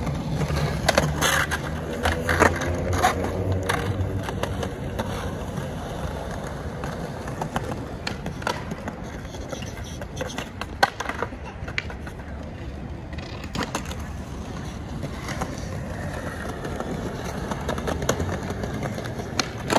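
Skateboards rolling over stone paving with a steady rumble, broken by sharp clacks of boards hitting the ground from tricks and landings; the loudest crack comes about eleven seconds in.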